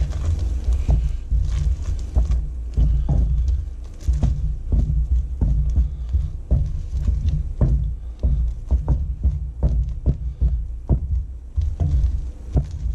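Wooden spoon stirring hot honeycomb toffee in a stainless steel pot, with a run of uneven low thumps and clicks as it knocks and scrapes against the pot. Bicarbonate soda is being stirred through the molten sugar syrup.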